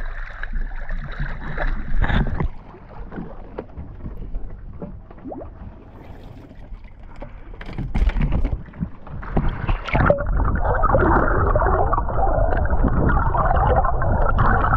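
Water sloshing and gurgling around a camera held at the sea surface, heard muffled through its waterproof housing. A few knocks come around eight to ten seconds in, then a steady rushing.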